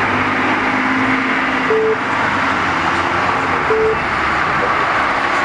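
Steady road traffic noise with a constant hiss of passing vehicles. Two short beeps sound about two seconds apart.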